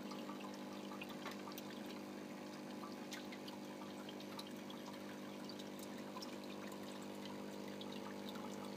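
Aquarium filter running: water trickling steadily over a low, even hum, with faint scattered ticks.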